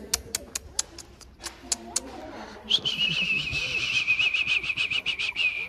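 A run of sharp clicks, then a high, wavering whine held for about three seconds from a week-old Labrador puppy whose eyes are not yet open.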